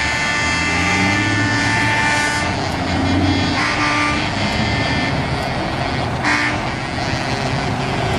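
Heavy trucks driving slowly past with diesel engines running; a multi-tone truck air horn holds for about the first two and a half seconds, and two short higher blasts come later, about three and a half and six seconds in.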